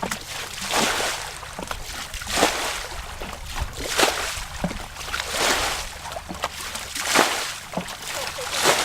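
Water splashing and sloshing in a steady series of strokes, roughly one a second, each with a short gurgle.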